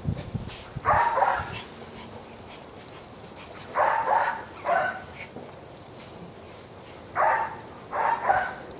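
A dog barking in short, high-pitched yelps, about five in all, coming singly and in pairs.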